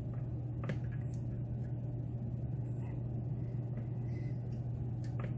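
A steady low hum, with a faint tick of a lock pick against the pins of a pin-tumbler lock about a second in and again near the end.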